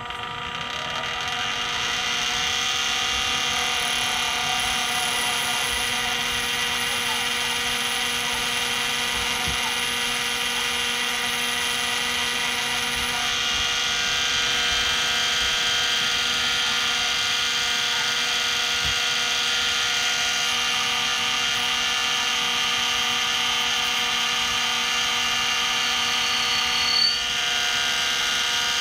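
Benchtop mini lathe running, its motor and spindle spinning up over the first two seconds into a steady whine made of several high tones. The tones shift a little about halfway through, and a short high squeal comes near the end.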